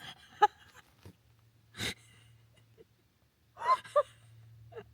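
Short breathy laughs and brief voiced exclamations from people, with a sharp exhale about two seconds in.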